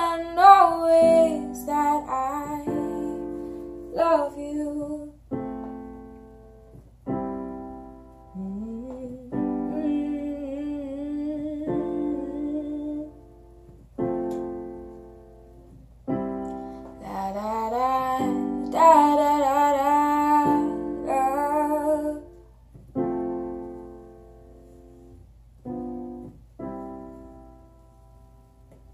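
Slow piano chords played one after another, each left to ring and die away, with a woman's wordless singing coming in about nine seconds in and again from about seventeen to twenty-two seconds. The playing thins out near the end.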